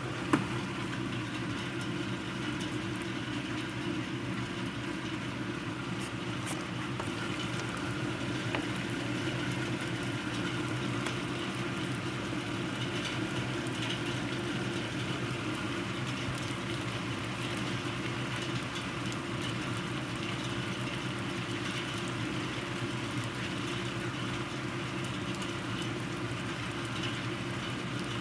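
Steady rain falling during a thunderstorm: an even, unbroken hiss with a few scattered ticks and a sharp click just after the start.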